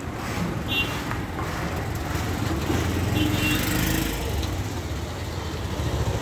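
Street traffic: a motor vehicle's engine running close by, swelling about halfway through, over a steady background of outdoor noise, with a couple of brief high chirps.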